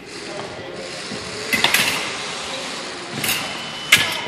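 Steel fencing foil blades clashing: a quick flurry of metallic clinks about a second and a half in, then two sharp ringing clinks near the end, the last the loudest.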